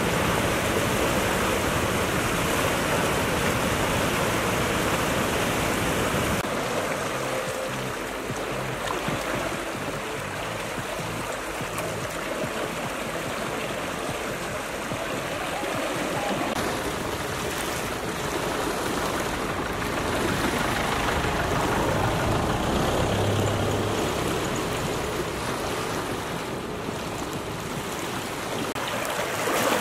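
Fast-flowing floodwater rushing and churning over flooded ground, a steady loud rushing noise like rapids.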